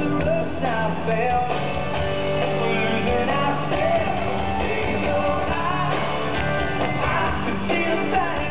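A live rock band playing through a concert PA, heard from within the crowd: guitars and bass, with a lead melody that bends and slides in pitch.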